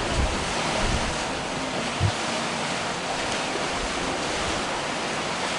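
Sea water rushing and splashing past a sailing catamaran under way, with some wind on the microphone. There is a single low thump about two seconds in.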